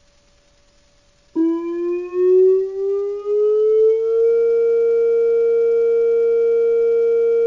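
Homemade Bluetooth electronic siren, a small speaker fitted in a cup, playing a Whelen siren tone. It comes in sharply about a second in, climbs slowly in pitch for a few seconds, then settles into a steady, unbroken tone.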